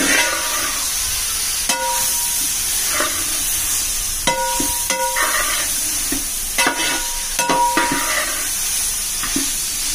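Onions frying in coconut oil in a large aluminium pot, a steady sizzle, while metal utensils knock against the pot about half a dozen times, some of the knocks leaving a brief metallic ring.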